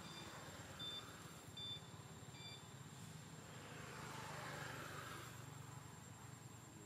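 Faint outdoor ambience. Under a low steady hum there are a few short, high chirps or beeps in the first couple of seconds, and a soft rushing noise swells and fades about four to five seconds in, like a distant vehicle passing.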